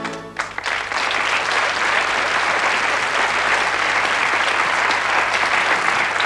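Studio audience applauding steadily. The end of a musical jingle cuts off just as the applause begins.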